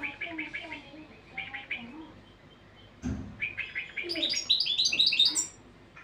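European goldfinch singing: short runs of rapid twittering notes, then a louder, longer phrase that climbs higher and ends about five and a half seconds in. A soft thump sounds about three seconds in.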